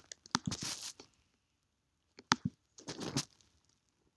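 Sharp clicks at a computer, each followed by a short scratchy rustle. They come in three clusters: at the start, a little after two seconds, and about three seconds in.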